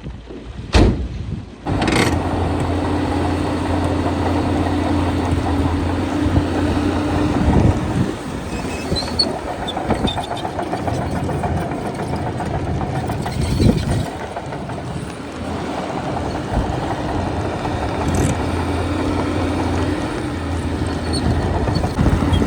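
Heavy diesel earthmoving machinery running steadily with a low hum. Two sharp knocks come in the first two seconds, and another knock comes about halfway through.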